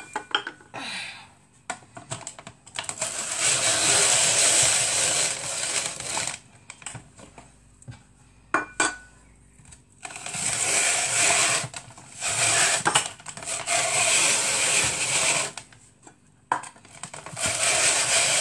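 Electric kitchen machine running in several bursts of a few seconds each, switched on and off in turn, processing potatoes for potato pancakes.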